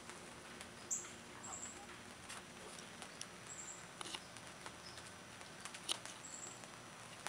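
Faint, short high-pitched chirps recurring every second or two, with a few sharp light clicks in between.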